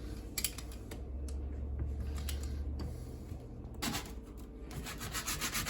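Hand sanding of a switch plate cover's edge: a few light clicks and a low hum first, then from about four seconds in rapid back-and-forth rubbing strokes, about five a second.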